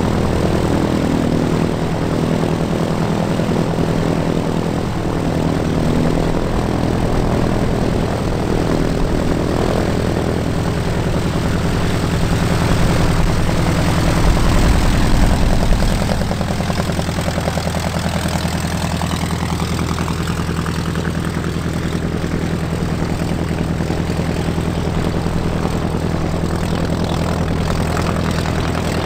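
Rutan Long-EZ's rear-mounted engine and pusher propeller running at taxi power as the canard plane taxis past and away: a steady low engine drone, briefly louder about halfway through.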